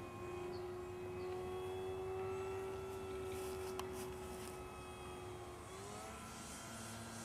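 Multiplex Mentor RC trainer plane's electric motor and propeller droning steadily in flight, the pitch rising about six seconds in.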